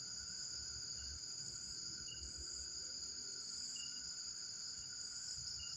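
Steady night chorus of crickets and other insects, a constant high trill, with short faint high chirps every second or two.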